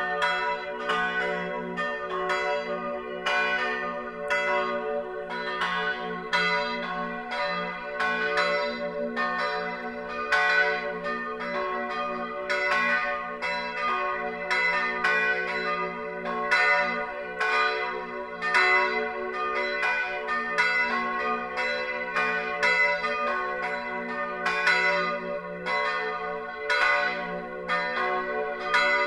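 Full peal of three bronze church bells tuned F#, B and D# (cast 1582, 1604 and 1947) ringing together, their strikes overlapping in an uneven pattern of about three a second over a steady hum.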